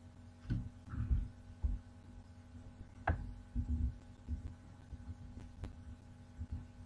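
Faint, irregular low thumps, with one sharper click about three seconds in, over a steady low hum.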